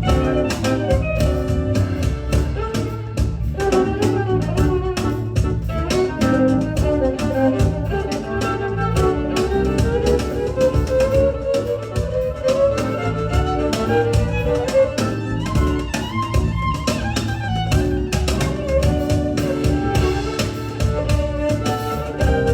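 Live ensemble music: a bowed string instrument plays a gliding melody over steady percussion.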